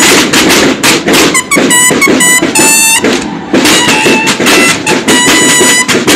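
Mexican banda de guerra playing: rapid snare drumming under short, repeated bugle notes, with a brief break a little after halfway before the drums and bugles come back in.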